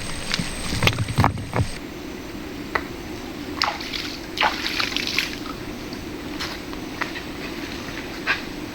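Shallow river water running steadily, with scattered small splashes and sloshes. A few heavier knocks and splashes come in the first couple of seconds.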